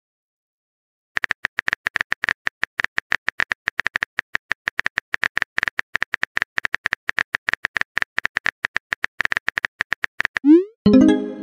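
Rapid, steady clicking of a phone keyboard typing sound effect, starting about a second in and running for about nine seconds. Near the end a short rising swoosh and a brief tone-like chime follow as the message is sent.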